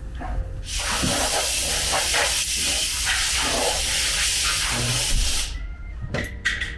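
Compressed air hissing from a shop air tool in one steady blast of about five seconds, cutting off abruptly, followed by a couple of sharp clicks.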